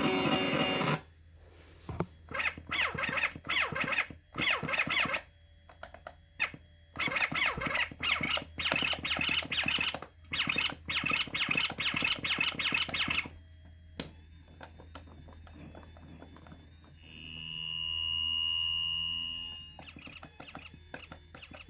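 Circuit-bent Tyco Blue's Clues toy refrigerator sputtering out choppy, stuttering fragments of sound through its small speaker, then, near the end, a steady high electronic tone that swells up and fades away over a few seconds.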